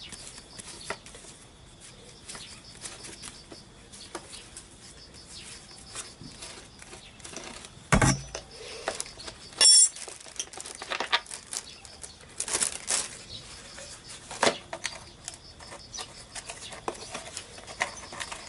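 Metal tools and engine parts clicking and knocking while a scooter engine is dismantled by hand, with rustling of a plastic parts bag. A loud knock about eight seconds in is followed shortly by a short ringing metallic clink.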